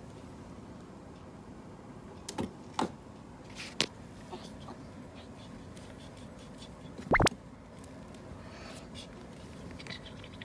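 Ferret sneezing in fits: several short, sharp sneezes between about two and four seconds in, then a louder one about seven seconds in.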